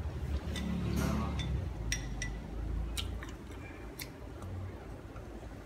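Chopsticks clicking and clinking against a porcelain rice bowl, about half a dozen sharp clicks with a brief ringing ring, spread a second or so apart, over low chewing sounds in the first half.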